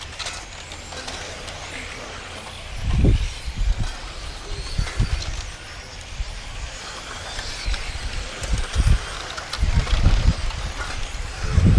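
Electric 1/10-scale touring cars (Xray T4) racing around the track, a thin high whine of motors and tyres, broken by gusty low rumbles of wind on the microphone about three seconds in and again through the last few seconds.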